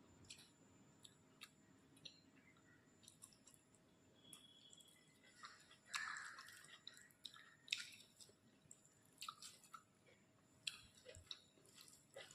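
Close-miked chewing of a rice meal: faint, irregular wet smacks and mouth clicks, with a louder squishy mouthful about six seconds in.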